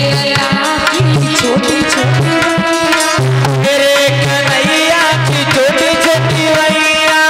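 Devotional folk dance music: a hand drum keeps a steady, driving beat under a held, wavering melody line, with no singing.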